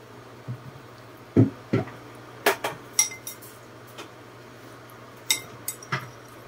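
Metal spoon clinking and knocking against ceramic bowls and a plate while scooping food and broth: about ten separate clinks, some ringing briefly. A faint steady low hum runs underneath.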